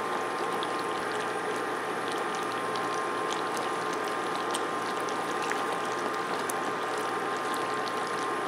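Sugar syrup boiling hard in a saucepan near the hard-crack stage, about 300 °F: a steady, dense crackle of popping bubbles. A steady high whine from the induction burner runs underneath.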